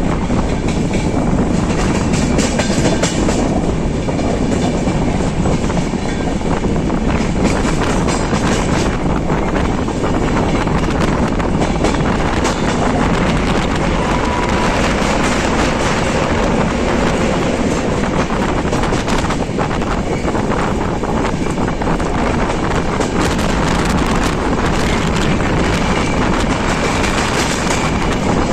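Freight train of covered goods wagons rolling past: a steady, loud rumble with wheels clacking over rail joints.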